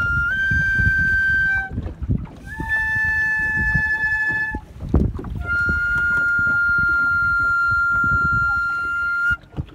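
A transverse flute played in long, held high notes, each sustained for one to four seconds, with short breaks between and a small step up in pitch at the start. A steady low rumble runs underneath.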